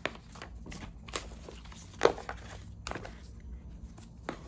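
Paper leaflets and a cardboard insert being handled and set aside: scattered light rustles and taps, with a sharper knock about two seconds in.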